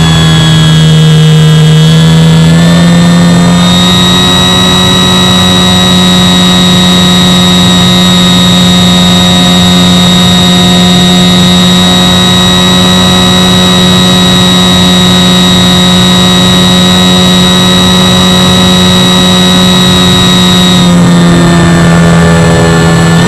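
Electric motor and propeller of an Avios Grand Tundra RC floatplane in flight, heard from the plane's onboard camera as a loud, steady whine. The pitch is a little lower for the first few seconds, steps up, and dips again about two seconds before the end as the throttle changes.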